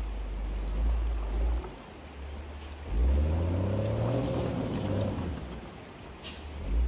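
Unimog truck's diesel engine revving up about three seconds in, its pitch rising and then holding for about two seconds under load on the river crossing. Low irregular rumbling comes before and after it.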